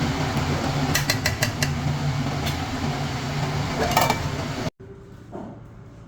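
Several sharp metal clinks of utensils against cookware over a steady humming background noise, then a sudden cut to a much quieter background near the end.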